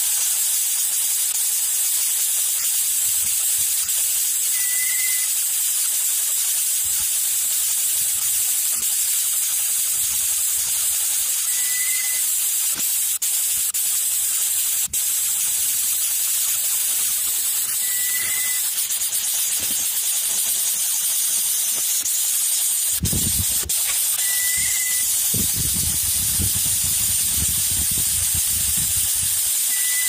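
A steady, high-pitched hiss, with a short high note repeating about every six seconds and a few low thumps near the end.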